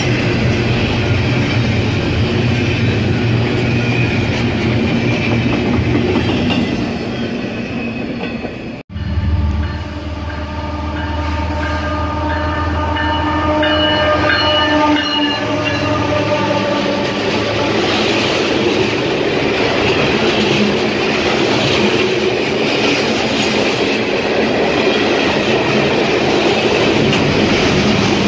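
A double-stack container freight train rolling past, wheels running on the rails. About nine seconds in it cuts to a CSX freight locomotive sounding its multi-chime air horn for about six seconds as it approaches, then the diesel locomotive and its string of freight cars rumble and clatter past.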